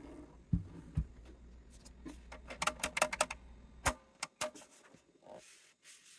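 Two dull thumps, then a quick run of sharp clicks and a few single clicks over a low steady hum, like objects being handled on a workbench.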